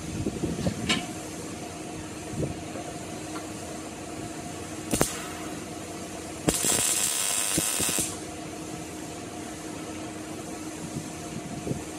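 Welding gun laying a short weld of about a second and a half on a steel chain ring, a loud hissing burst that starts and stops abruptly. A sharp knock comes a little before it, over a steady shop hum.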